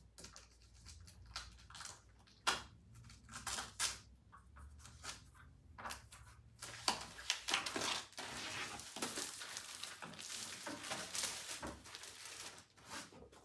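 Plastic packaging crinkling and rustling as a boxed book is handled and unwrapped, with scattered taps and knocks of the box on a glass tabletop in the first half. The crinkling turns dense and continuous over the second half.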